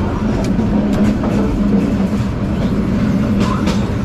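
Passenger train running, heard from inside a carriage: a steady low rumble of wheels and carriage, with a few sharp clicks of the wheels over rail joints.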